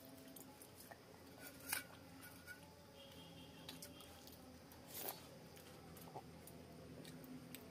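Faint, sparse eating sounds from people eating pakhala (fermented water rice) by hand: soft mouth clicks, chewing and wet smacks, with two slightly louder clicks about two and five seconds in.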